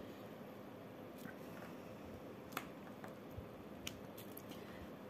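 A few faint, scattered clicks over quiet room tone: small resin diamond-painting drills being picked up with an applicator pen and pressed onto the sticky canvas.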